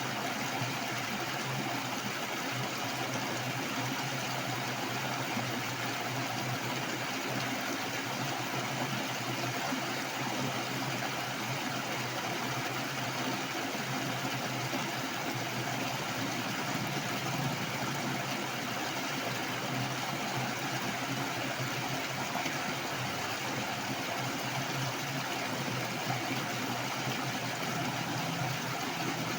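Heavy, fast-flowing water rushing steadily, swollen in the rainy season.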